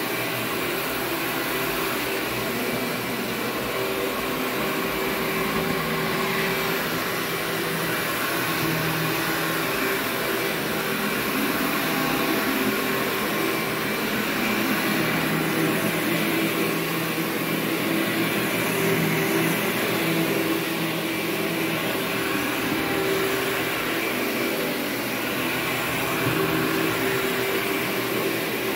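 Workhorse upright vacuum cleaner running steadily while it is pushed back and forth over carpet, a continuous motor drone whose hum swells and eases slightly with the strokes.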